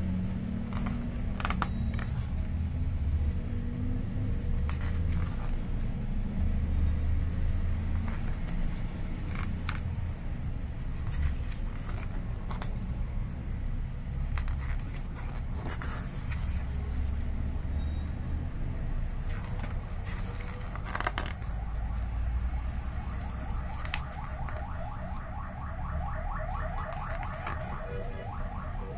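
Glossy pages of a large photo book being handled and turned, with brief paper rustles and clicks, over a steady low rumble. A fast, rhythmic rattle comes in near the end.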